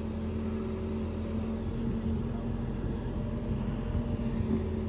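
Digger's engine running steadily at an even pitch while the bucket is lined up for a scoop.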